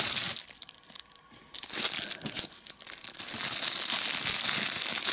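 Plastic bubble wrap crinkling and rustling as it is pulled off a folding knife. There is a pause of about a second just after the start, then steady crinkling again.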